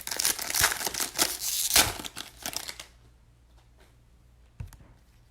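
Plastic wrapping on a trading card pack being torn and crinkled for about three seconds, then a single light tap.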